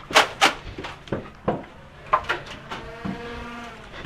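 A run of sharp clacks and knocks, two loud ones close together at the start and a few fainter ones after, then a brief held hum about three seconds in.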